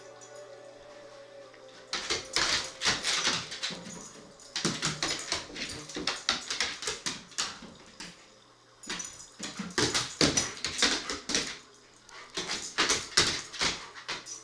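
A Doberman's claws clicking and scrabbling rapidly on a hardwood floor as it spins and dashes about, in four bursts with short pauses between.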